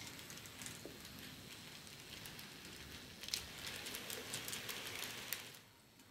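Bachmann N-scale Empire Builder model train running on its track: a light, rattling hiss with many small clicks, louder in the second half and dropping away shortly before the end.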